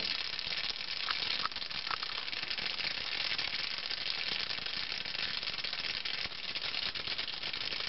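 Foam fizzing and crackling as it wells out of the neck of a beer bottle forgotten in the freezer: a steady crackling hiss of bubbles popping, with a few faint ticks a second or two in.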